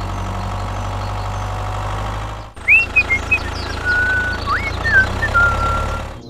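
Engine idling with a steady low rumble. The sound breaks off sharply about two and a half seconds in, then the rumble resumes with a few short, high, whistle-like chirps over it.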